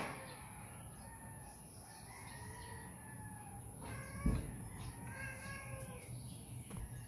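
Rooster crowing twice: long calls made of several tones, one a couple of seconds in and a stronger one about five seconds in. A single dull thump just past four seconds.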